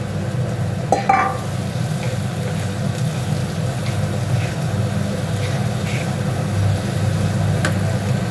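Cubed potatoes sizzling in spiced masala that has released its oil in a kadai, stirred and scraped with a wooden spatula, with a sharp knock about a second in. A steady low hum runs underneath.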